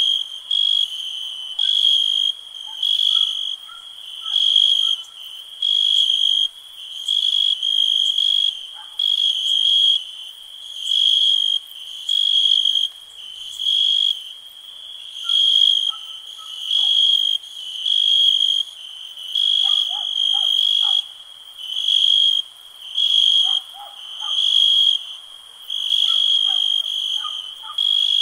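Crickets chirping in an even rhythm, a high pulsed trill about once a second, with fainter scattered calls of other night creatures lower in pitch.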